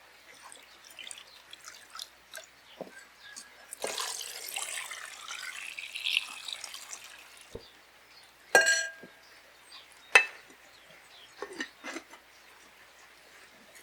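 Small clicks and handling noises, a stretch of running or pouring water lasting about three seconds, then two sharp ringing clinks, as of a dish or glass being struck.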